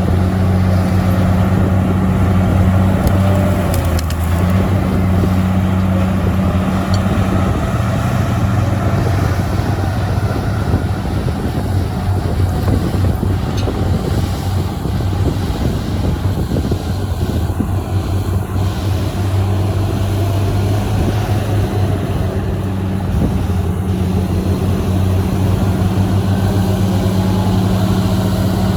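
Heavy diesel engines of earthmoving machines running steadily, with a loud low drone and a rougher, grinding layer that thickens through the middle.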